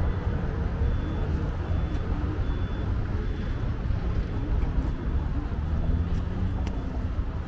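Steady rumble of road traffic, with faint voices in the background and a faint high beep repeating a little faster than once a second during the first half.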